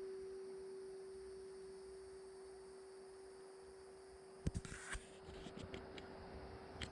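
A single steady tone from a singing bowl ringing out, fading very slowly, with a few faint clicks and knocks a little over halfway through.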